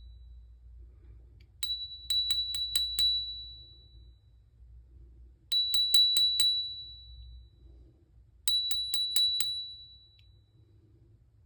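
A small metal bell rung in three quick bursts of five or six rapid dings each, about three to four seconds apart, each burst ringing on briefly after the last stroke.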